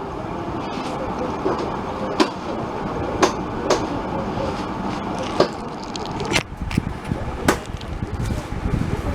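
Steady background noise of a room, broken by a handful of sharp clicks and knocks about once a second.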